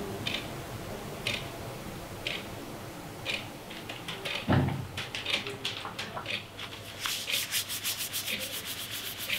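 Scraping strokes of a flat hand tool dragged over paper on the floor, about one stroke a second, with a single thump about halfway. In the last couple of seconds, rapid back-and-forth rubbing of a paper towel over the sheet.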